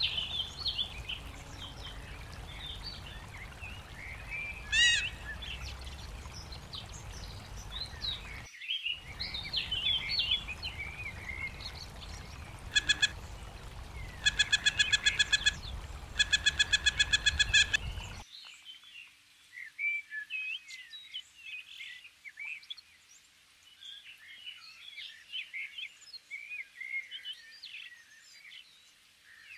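Creek water rushing over rocks with small birds chirping, a thin rising whistle about five seconds in, and a loud fast run of sharp repeated calls from about 13 to 18 seconds. At about 18 seconds the water noise cuts off suddenly, leaving only scattered woodland birdsong.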